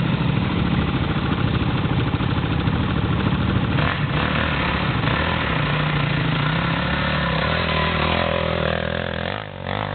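Off-road dirt bike engine running steadily, its revs rising and falling a little, with a brief dip in loudness near the end.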